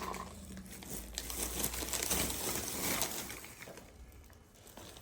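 A packaging bag rustling as it is handled, with soft irregular scratches that grow quieter near the end.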